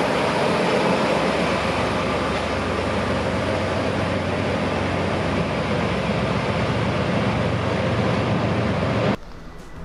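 A DE10 diesel-hydraulic locomotive running steadily under power as it draws the sightseeing train away, with the rumble of the cars rolling on the track. Just before the end it cuts abruptly to quieter music.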